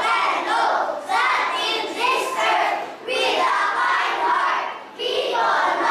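A large group of young children reciting a poem together in unison, their voices in short chanted phrases of about a second each with brief breaks between them.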